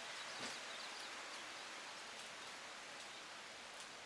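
Heavy rain falling, a steady hiss with scattered drips and taps.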